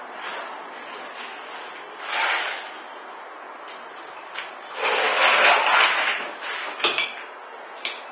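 A mosaic parquet panel being slid and pressed into place on the floor by hand: scraping, the longest and loudest about five to six seconds in, with a few light knocks.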